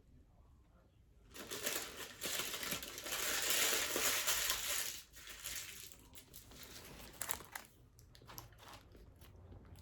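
Paper food packaging crinkling and being crushed for a few seconds, starting about a second in and stopping suddenly about five seconds in, followed by a few faint scattered clicks and taps.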